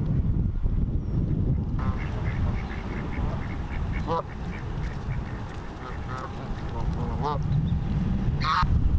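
Canada geese honking: a few separate calls, the loudest near the end, with short high notes in between, over a steady low rumble.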